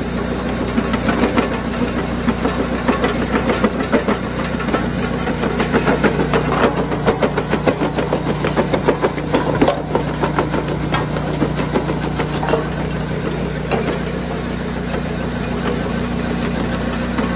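Dragon Equipment CR400 jaw crusher, its Vanguard EFI 23 hp V-twin petrol engine running steadily while it crushes bricks and rubble. A dense run of cracks and rattles from breaking brick and falling fragments is busiest for roughly the first ten seconds and thins near the end.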